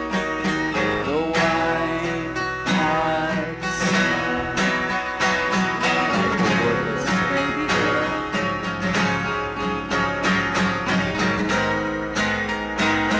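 Recorded rock band music: guitar over drums keeping a steady beat, in an instrumental stretch with no lyrics sung.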